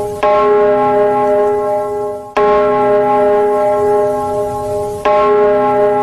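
A bell struck three times, about two and a half seconds apart, each stroke ringing on with a cluster of steady tones until the next.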